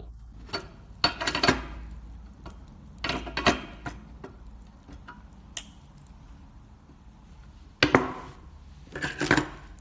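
Metal clinks and rattles of steel pliers handling a nut and bolt, in four short clusters of sharp clicks separated by quieter stretches.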